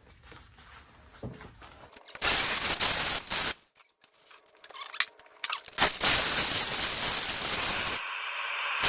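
Power cutting tool cutting through the sheet-metal inner sill of a 1995 Jeep Cherokee XJ: loud, harsh noise in bursts that start and stop abruptly, the first about a second and a half long and the second running through the end, with quieter handling sounds before and between them.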